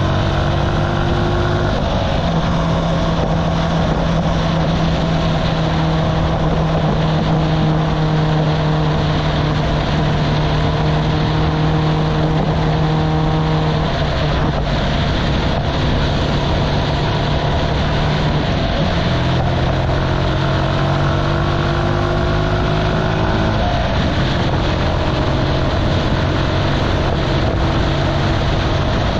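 Archive Motor AM60's 125cc single-cylinder engine running under way, its note creeping up and stepping to a new pitch a few times as the rider changes speed. Steady wind rush over the camera microphone runs under it.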